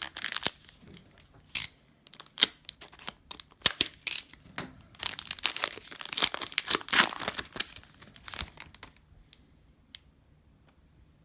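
Trading-card pack wrapper being torn open and crinkled by hand: a run of sharp, irregular crackles that dies away about three-quarters of the way through.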